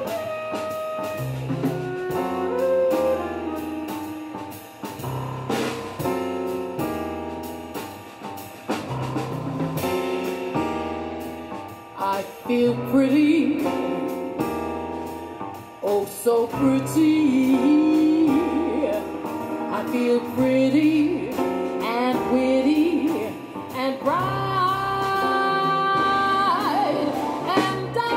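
Live jazz combo of grand piano, upright bass and drum kit playing, with a woman singing over them. Her voice comes in clearly about halfway through and holds a long high note near the end.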